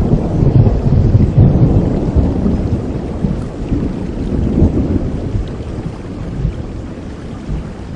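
A long roll of thunder rumbling through steady rain, loudest in the first couple of seconds and slowly dying away.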